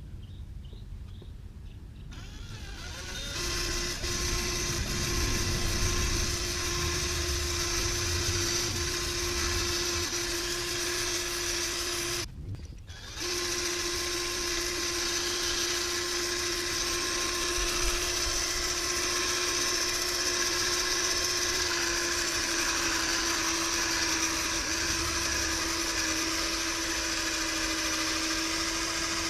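Cordless drill spinning a 500-grit sanding disc against a plastic headlight lens: a steady whine that starts a few seconds in, cuts out briefly about twelve seconds in, then resumes.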